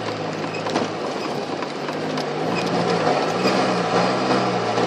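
Off-road 4x4's engine running as heard from inside the cabin while it drives a rough sand track, its pitch rising a little about two seconds in, with scattered clicks and rattles from the vehicle.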